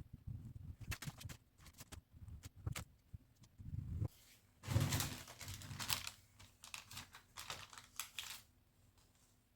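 Irregular clicks, taps and rustles of hand work on fabric at a table, in short bursts with soft knocks, the longest burst about halfway through.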